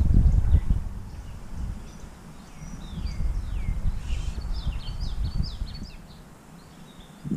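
Birds calling: a few downward-sliding whistles, then a quick run of short high notes about four seconds in. Under them is a low rumble that dies away toward the end.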